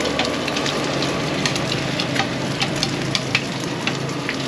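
Hot oil sizzling and crackling in a large flat street-vendor pan as rice flour cakes and eggs fry over a high flame, with many short sharp clicks and pops throughout.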